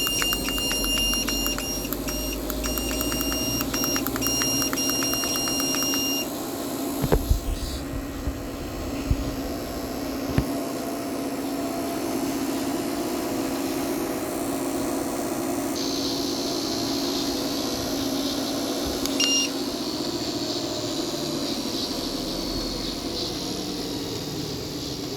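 Electric treadmill's motor and belt running steadily, its speed control working again after the damaged IGBT transistor was replaced. The console beeps in a quick run of short beeps for about the first six seconds, a few sharp knocks follow, and there is one more short beep later.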